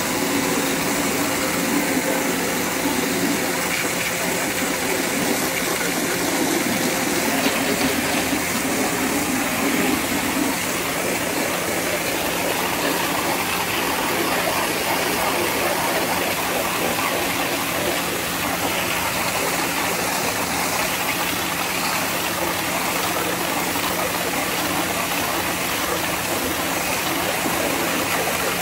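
Pressure washer running steadily, its motor and pump humming under the hiss of the high-pressure water jet spraying against vinyl siding.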